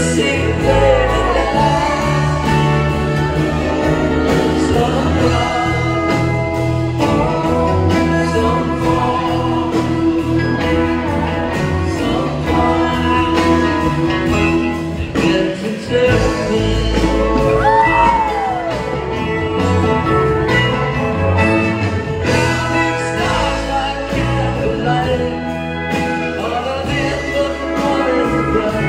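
Live band playing, with acoustic guitar, steel guitar and electric bass, and singing.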